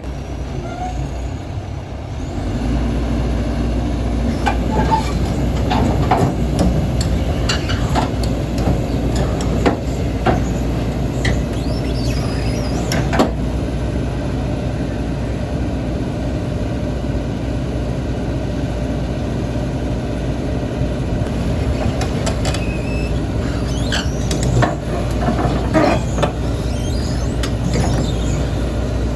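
A heavy diesel engine comes up to a steady run about two seconds in, with scattered metallic clanks and knocks over it.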